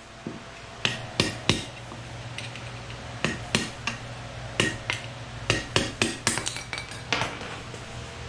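Hammer striking metal parts in quick groups of two or three blows, each with a short metallic ring, over a low steady hum.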